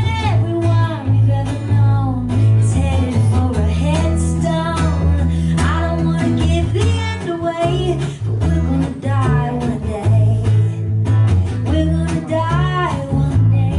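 Live acoustic band music: plucked guitar and a steady bass line under a sliding, wavering melody line.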